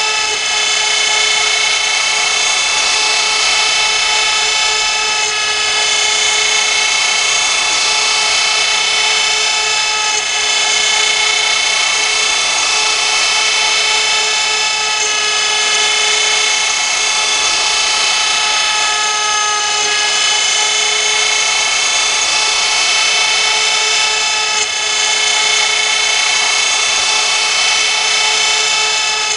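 CNC router spindle running and cutting a workpiece: a steady high whine of several tones over a noisy hiss, with brief small dips in level now and then.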